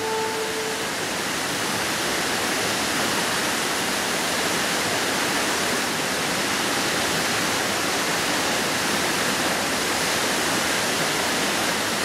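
Waterfall rushing steadily: an even, unbroken noise of falling water. A held shakuhachi note dies away within the first second.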